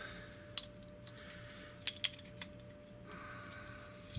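Plastic parts of a TFC Eagle (Air Raid) transforming figure clicking as it is handled and its joints are moved: four sharp clicks, two of them close together about two seconds in.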